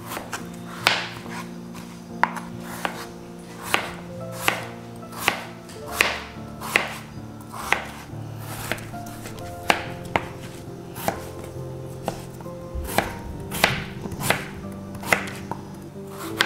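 Kitchen knife chopping peeled raw potatoes into chunks on a cutting board: a crisp knock of the blade through the potato onto the board about once a second. Soft background music runs underneath.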